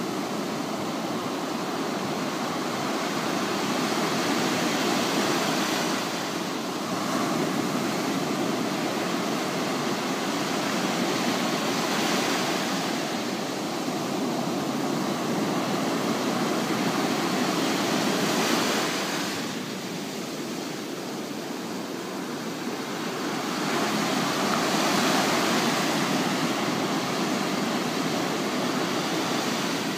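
Surf on a sandy beach: waves breaking and washing up over the wet sand in a continuous rush that swells every few seconds, easing into a quieter lull about two-thirds of the way through.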